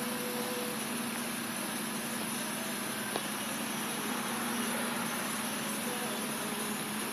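Steady outdoor background: a constant low hum under an even hiss, with a thin high-pitched drone on top.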